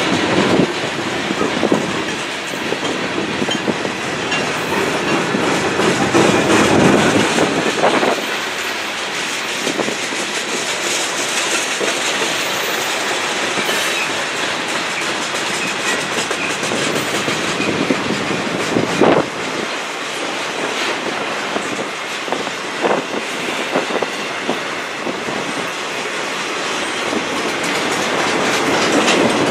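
Freight cars of a passing train rolling by at close range: steel wheels clacking over rail joints over a steady rumble, with scattered sharp knocks.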